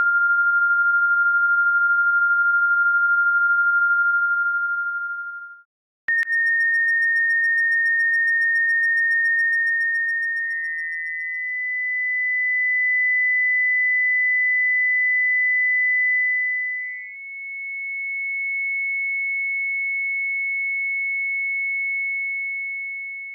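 Electronic sine tones converted from EEG readings, each a single pure pitch held for several seconds. The first fades out about five seconds in; after a short gap and a click, three higher tones follow one after another, each slightly higher than the last and blending into the next.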